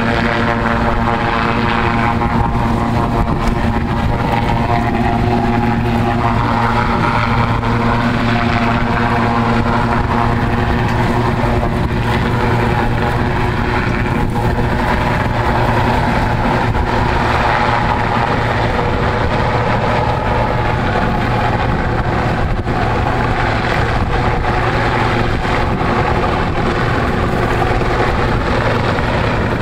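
Rescue helicopter hovering low over the sea, its rotor and turbine engines running with a steady, unbroken drone made up of several fixed tones.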